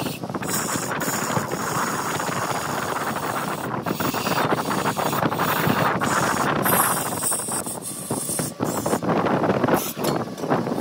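Large wood lathe running while a turning tool cuts into the spinning wood, a steady noisy cutting hiss broken by a few brief gaps.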